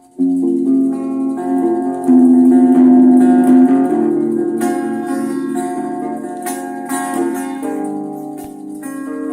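Music on a plucked string instrument, guitar-like: a run of ringing notes and chords that begins just after the start.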